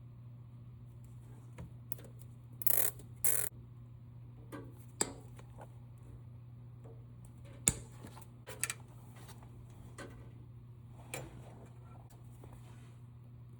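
Scattered sharp clicks and knocks, with two short scraping rushes about three seconds in, over a steady low hum.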